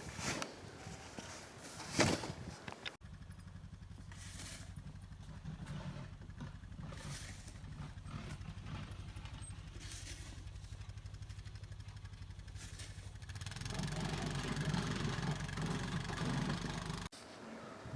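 A couple of sharp knocks, like a snow shovel striking, in the first few seconds; then a vehicle engine idling steadily, getting louder about three-quarters of the way through and cutting off suddenly near the end.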